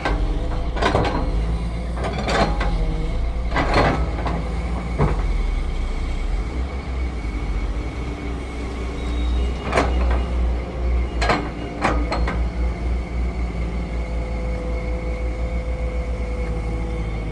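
Heavy diesel construction machinery running steadily, with a series of sharp knocks and clanks: several in the first five seconds, then a few more between about ten and twelve seconds in.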